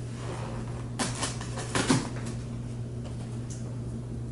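A quick cluster of clicks and knocks from a boxed package being handled, about a second in, over a steady low hum.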